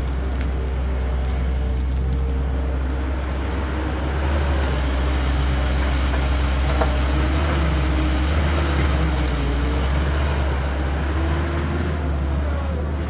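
Heavy diesel earthmoving machinery running steadily with a deep hum, growing louder about four seconds in and easing off near the end.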